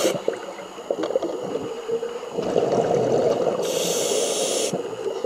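Scuba diver breathing through a regulator underwater: a long rush of exhaled bubbles starts about two seconds in, with a sharp hiss from the regulator near its end.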